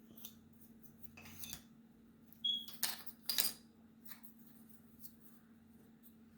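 Map puzzle pieces being handled and fitted into place: a few short, scratchy clicks and scrapes in the middle, over a faint steady hum.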